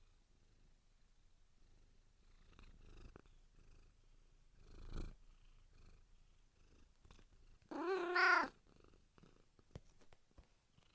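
Domestic cat purring softly, with a breathy swell about five seconds in and one short meow about eight seconds in, the call of a hungry cat.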